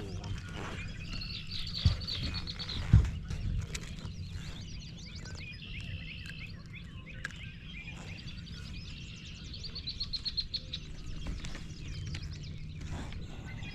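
Songbirds singing, repeating short trilled phrases several times over a steady low outdoor rumble. Two sharp knocks sound about 2 and 3 seconds in, the second the loudest thing heard.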